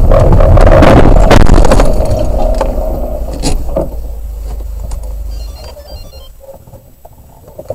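A car crashing into parked cars and a wall: about two seconds of loud crunching and scraping, one more sharp knock shortly after, then a low rumble that dies away about five seconds in.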